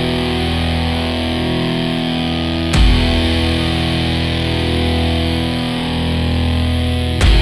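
Instrumental dark country music: sustained guitar chords over a heavy low bass, with a strong accented hit about every four and a half seconds.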